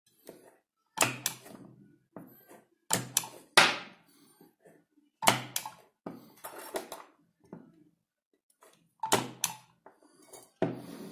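Battery spot welder firing through a spring-loaded electrode holder, welding a thin 0.15 mm strip onto a cylindrical battery cell: a series of sharp snaps, about one every second or two, several with a short low hum.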